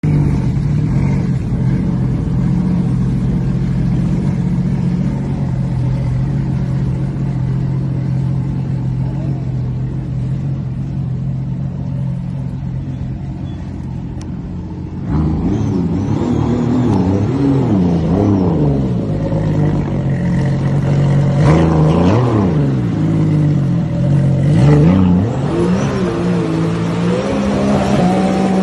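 Engine of a jet-propelled amphibious sports-car boat running steadily at low speed, then revving up and down repeatedly from about halfway. It rises as the craft accelerates away across the water near the end.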